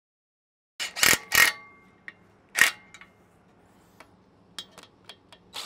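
Cordless impact driver fired in short bursts: two close together about a second in and one more a second and a half later. These are nuts being snugged onto carriage bolts through rubber bumper pads, kept brief so the carriage bolts don't spin. Faint scattered clicks of metal parts being handled follow.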